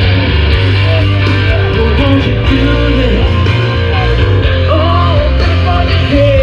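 Rock music with a singing voice, guitar and a steady heavy bass line.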